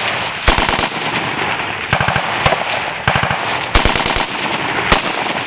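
Machine guns firing short bursts of several rounds each, with single shots between, from more than one gun in turn.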